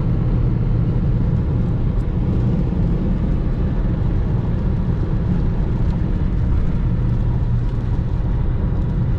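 A car driving at steady speed, heard inside the cabin: an even low rumble of engine and tyre noise.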